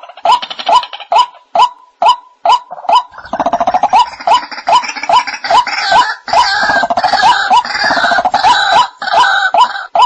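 White-breasted waterhen calls: a steady run of short 'kook' notes, about two or three a second. From about three seconds in, loud harsh croaking and grunting chatter joins them and dies away near the end.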